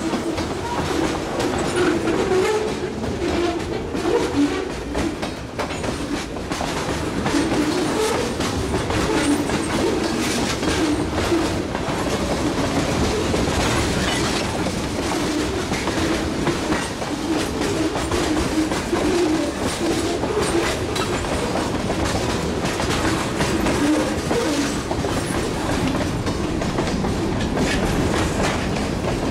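Freight cars (covered hoppers and tank cars) rolling past close by. A steady rumble of steel wheels on rail, with repeated clicks as the wheels pass over rail joints.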